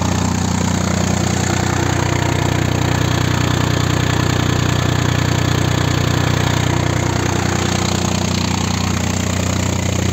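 Massey Ferguson 240 tractor's three-cylinder diesel engine running steadily at about 1300 rpm, driving a PTO-shaft generator under load.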